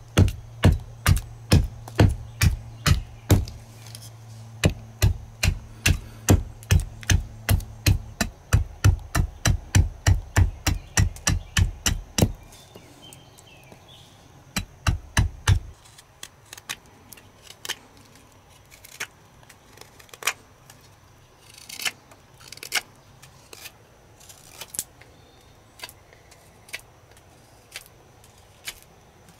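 Swedish carving axe chopping a wooden spoon blank against a wooden chopping stump in rapid, even strokes, about three a second, for roughly the first twelve seconds, with a short run of a few more chops a couple of seconds later. After that come fainter, sparser clicks of a carving knife slicing wood.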